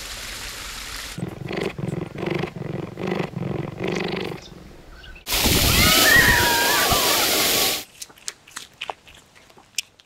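Water splashing down a rock waterfall, then a run of about eight low, evenly spaced animal grunts. Then a loud rush of churning water with a wavering high call over it, and a few small clicks near the end.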